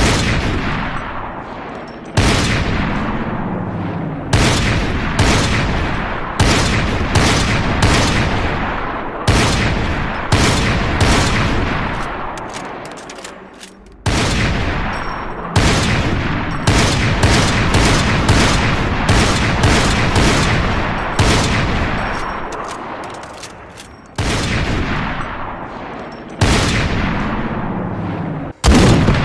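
Barrett M82A1 .50-calibre sniper rifle firing shot after shot, more than twenty in all, mostly well under a second apart with a few longer pauses. Each sharp report is followed by a long rumbling echo that dies away.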